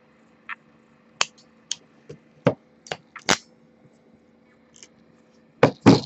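IWISS SN-01BM ratcheting crimp tool clicking as its handles are squeezed down on a JST XH terminal: about ten short sharp clicks, unevenly spaced, with two louder clacks near the end.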